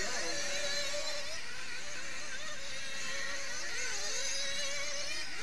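Several 1/8-scale nitro buggy engines whining at high revs around the track, their high pitch wavering up and down as they accelerate and back off.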